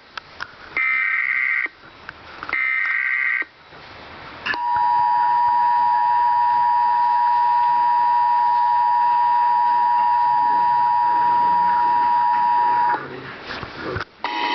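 Emergency Alert System broadcast signal: short buzzing digital SAME header bursts, two of them in full, then the steady two-tone EAS attention signal (853 and 960 Hz), held for about eight seconds and cut off sharply. Together they signal an emergency alert, here a tornado emergency.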